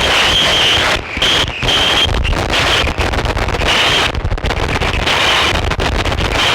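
Harsh noise from a chain of fuzz and distortion effects pedals, including Death By Audio pedals and a BOSS Metal Zone: a loud, dense wall of distorted noise with a high whistling tone that comes and goes. It breaks into stuttering dropouts about a second in and again around four seconds in.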